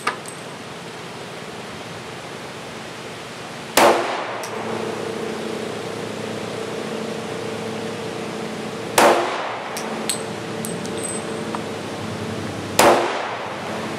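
Three single pistol shots from a Glock firing the .357 SIG round, several seconds apart: about four seconds in, about nine seconds in, and about thirteen seconds in.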